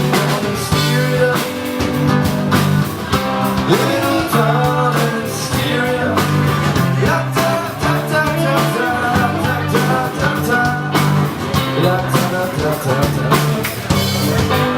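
Live rock band playing: electric guitar lines over a steady bass line and drum kit beat.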